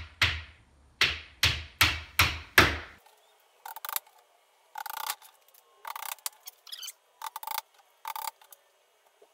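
Hammer driving small nails into the thin panel of a flat-pack cabinet: a quick run of sharp, ringing blows about every 0.4 s, then after about three seconds lighter, more spaced taps.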